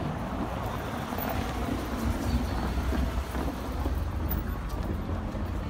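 City street traffic: cars passing on the road, a steady noise of engines and tyres.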